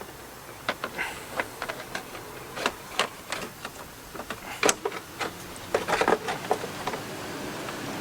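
Parts being handled and worked by hand: an irregular run of clicks, taps and light clatter, with the loudest knocks a little past the middle.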